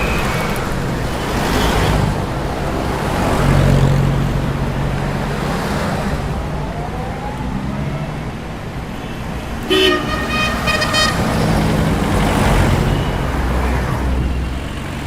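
City road traffic passing close by: engines and tyres swelling and fading as several vehicles go past, with a vehicle horn tooting once for about a second, about ten seconds in.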